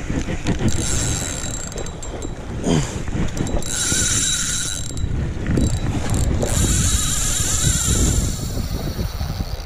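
Fishing reel drag buzzing in two long runs, about four and about seven seconds in, as a large hooked fish pulls line off against the drag, over low rumbling handling noise.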